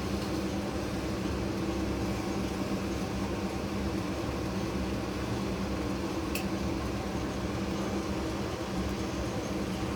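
Steady hum of a fan motor running, with one faint tick about six seconds in.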